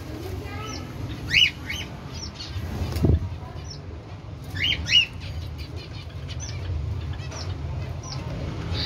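Cockatiels chirping with short sharp calls while they feed, a cluster of chirps about a second and a half in and another around five seconds. A dull thump about three seconds in.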